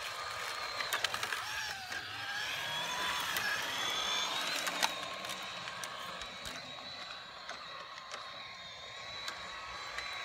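Radio-controlled car's small electric motor and gears whining as it drives, the pitch wavering up and down with speed, with scattered clicks.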